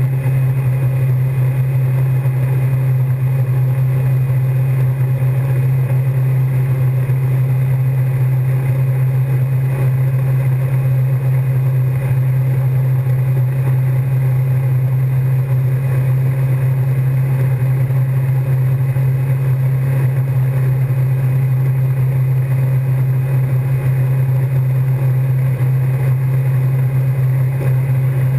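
Wake boat's inboard engine running at a steady speed, a constant low drone, over the rush of the churning wake water.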